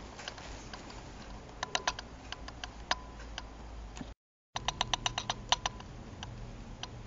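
Clusters of small, sharp clicks and rattles from a compact automatic folding umbrella being handled: its plastic handle and push-button and its folded metal ribs. A short gap of silence about four seconds in.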